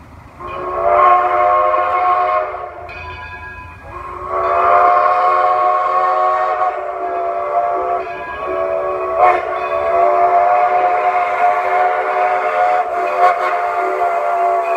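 Steam locomotive whistle blowing a chord of several notes at once: a blast of about two and a half seconds, then one long blast held for about ten seconds.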